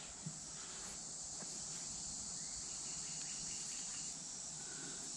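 A steady, high-pitched insect chorus, with a faint click about a quarter second in.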